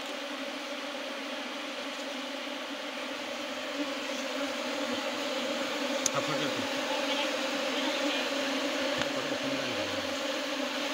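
Honeybees massed at a hive entrance buzzing steadily, a hum with a clear pitch. It grows a little louder about halfway through, with a short click about six seconds in.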